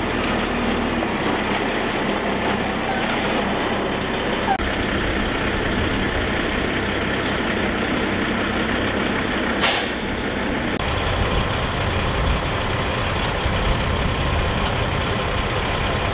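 Heavy military truck's diesel engine running steadily, with a short burst of hiss about ten seconds in.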